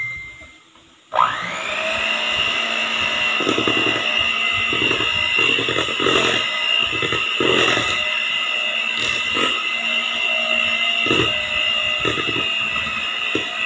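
Electric hand mixer switched on about a second in and running steadily, its beaters whirring through cake batter in a stainless steel bowl.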